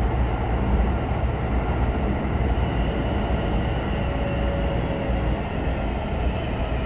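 Cabin running noise of a Keisei 3100 series electric train with Toyo hybrid SiC-VVVF control: a steady, dense rumble of wheels on rail. A faint high whine slowly falls in pitch through the second half.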